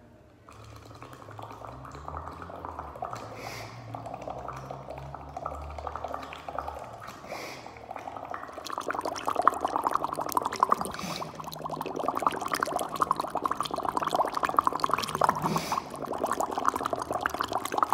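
Air blown through a plastic drinking straw into a cup of water, bubbling continuously; it starts about half a second in and grows louder and denser about halfway through. It is the circular-breathing drill: the bubbling must not stop while the player breathes in through the nose and pushes the air with the cheeks.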